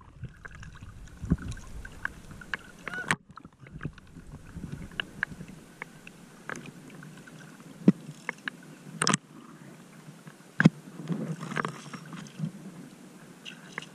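Shallow sea water lapping and splashing close to the microphone around a wading angler, with scattered sharp clicks and knocks.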